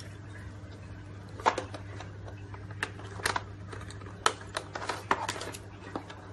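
Irregular sharp plastic clicks and knocks as wiring-harness connectors and car control modules are handled on the floor, over a steady low hum.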